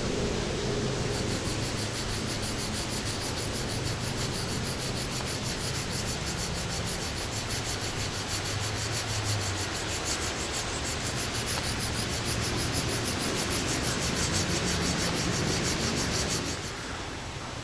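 Knife blade being stroked along a Fallkniven DC-4 sharpening stone, steel rubbing on stone in light passes to hone the edge, over a steady hiss; it stops about a second before the end.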